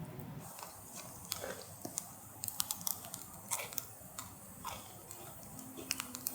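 Wood fire crackling: irregular sharp pops and snaps of varying loudness, some with a short falling hiss, over a low background hiss. Music fades in near the end.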